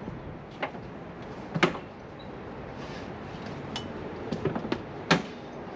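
A handful of sharp knocks and clicks from someone handling gear around a motorcycle standing in a pickup bed. The loudest comes about a second and a half in and another near the end, with a quick run of smaller ones just before it, over a steady background hiss.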